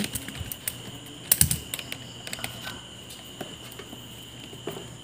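Scattered light clicks and taps from an analog multimeter and its test leads being handled on the workbench, with a louder clatter about a second and a half in.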